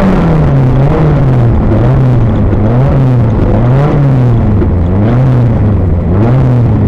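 Rally car engine heard from inside the cockpit at speed, its revs swinging up and down about once a second as the driver accelerates and lifts along a twisty lane, over steady road and drivetrain noise.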